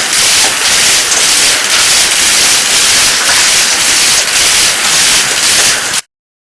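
Rotary dryer running: a loud, steady rushing hiss with faint regular pulses a few times a second. It cuts off suddenly near the end.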